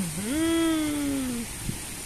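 A person's high voice drawing out one long, wordless vowel, rising at the start and then slowly sinking over about a second and a half.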